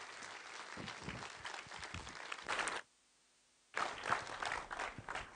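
Audience applauding. About three seconds in the sound cuts out completely for about a second. The clapping then comes back and dies away.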